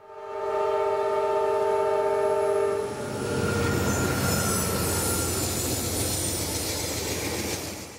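A horn sounds a chord of several steady tones for about three seconds, then gives way to a loud, steady noise that stops abruptly at the end.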